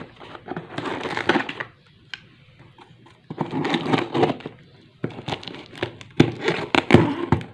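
A knife slitting clear packing tape along the seam of a cardboard box, then the tape being pulled and peeled off, crackling, in three spells of rustling with a few sharp clicks near the end.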